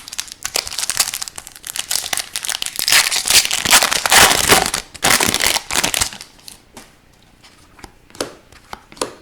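Crinkling and crumpling of a foil trading-card pack wrapper, loudest around the middle, followed by a few light clicks and taps of card handling.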